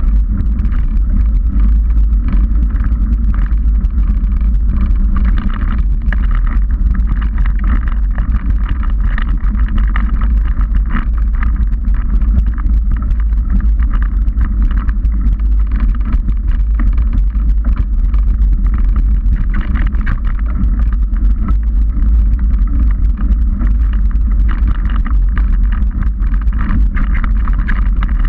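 Trek 29er mountain bike rolling fast over a dirt trail: a steady, loud rumble of wind buffeting the action camera's microphone, with tyre crunch and rattling from bumps over the ground.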